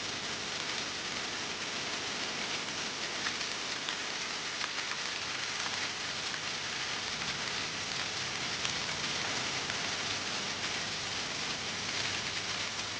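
Steady rush of water falling and splashing at a partly frozen waterfall, with faint scattered ticks of drops.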